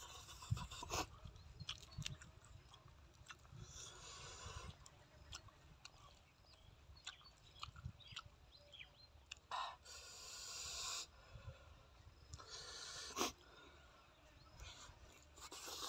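Faint eating sounds: hands handling lettuce and food on a tray, with chewing and mouth noises in scattered small clicks and short rustles.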